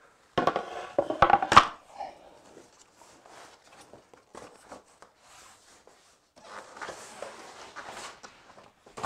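Two boat bench-seat boards knocking and clattering as they are taken out and set down on a tiled floor, then rustling and a longer soft scraping near the end as a folding floor panel is slid out of a fabric bag.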